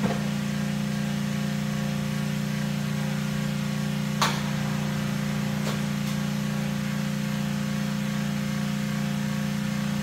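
A steady, even mechanical hum of shop machinery, with one sharp knock a little over four seconds in and a fainter one near six seconds as a large off-road tire is handled at a tire changer.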